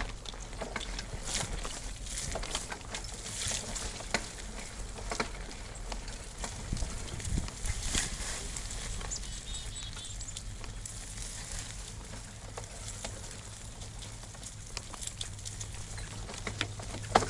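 Mountain bike ridden along a narrow dirt trail through brush: an irregular run of light clicks, taps and rattles from the bike over the ground, with leaves and grass rustling past.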